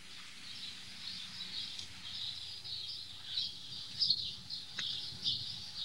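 Birds chirping continuously in the background, with a few faint short taps.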